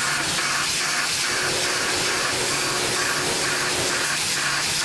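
Tormach PCNC 1100 CNC mill's end mill cutting the metal block, under a steady hiss of spray from the coolant nozzles, with the cutting sound pulsing about twice a second.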